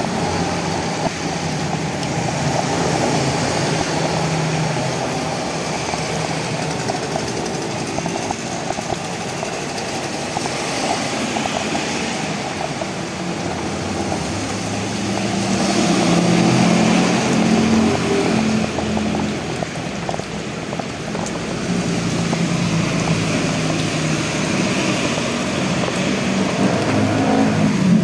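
Steady rain hiss mixed with the engine hum of motor vehicles going past on a road, one swelling about halfway through and another near the end.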